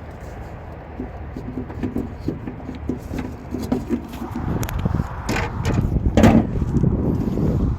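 Footsteps at a walking pace over a steady low rumble, growing louder in the second half, with a few sharper knocks and scrapes about five to six seconds in.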